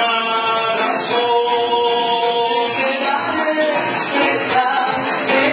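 Live Argentine folk music, a gato, played on acoustic guitar and cajón with singing.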